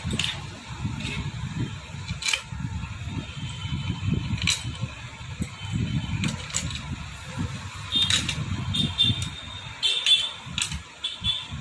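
Irregular sharp metallic clicks and clinks as parts and tools are handled on a motorcycle engine's bare aluminium crankcase, with some clicks close together near the end, over a low rumble.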